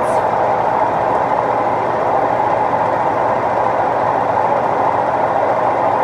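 Steady rushing hum of laundromat machines running, with no breaks or changes.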